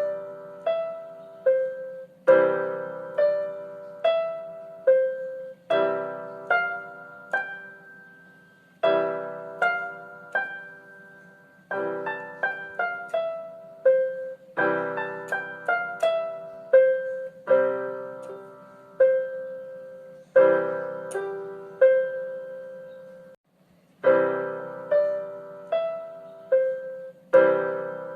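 Background music: a piano melody in short repeated phrases, each opening with a struck chord followed by a few notes that ring and fade.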